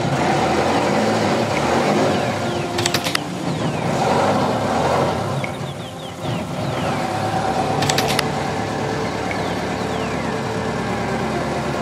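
Small wooden fishing boat's inboard engine running steadily while the boat is under way, with two brief clattering clicks about three and eight seconds in.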